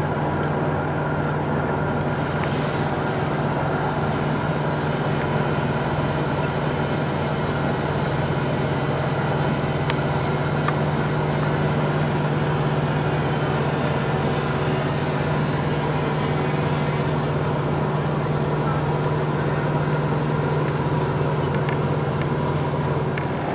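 A steady, even machine hum with a strong low drone and fainter higher steady tones above it, unchanging throughout.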